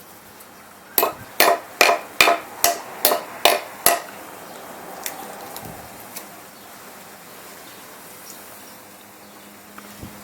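Eight quick hammer blows on metal, about two and a half a second, each ringing briefly, as a ball joint is driven into the A-arm. A couple of faint clicks follow.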